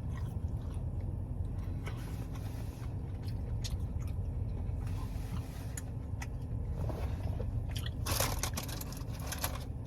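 Close-up biting and chewing of a soft fried garlic cheddar cheese bite: scattered wet mouth clicks, with two louder crunchy bursts near the end. A steady low rumble runs underneath.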